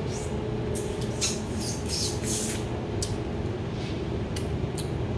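Eating by hand: a series of short, sharp crunches and crackles, typical of crab shells being cracked and chewed. A steady low hum runs underneath.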